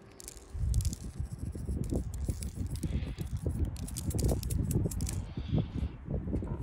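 Glass shaker jar of everything bagel seasoning shaken in quick repeated strokes, the dried seeds and flakes rattling inside and pattering out. The shaking starts about half a second in.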